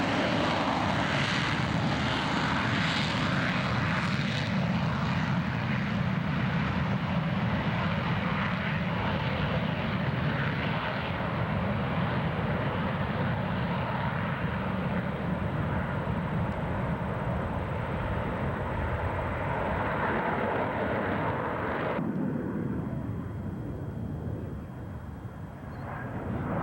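Airplane engine noise, loud and steady, slowly easing as the aircraft moves off. The higher part of the sound drops away suddenly near the end.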